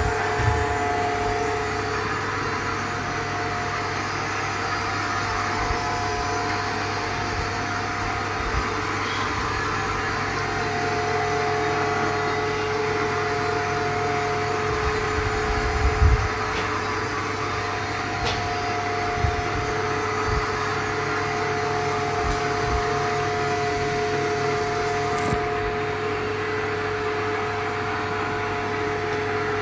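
A steady machine hum carrying several constant tones, with a few light knocks; a high thin whine comes in about 25 seconds in and holds.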